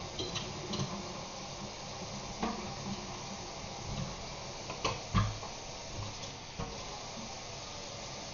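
Kitchen tap running steadily into a stainless steel sink, with a few light knocks and clatters of things being handled at the sink, the loudest about five seconds in.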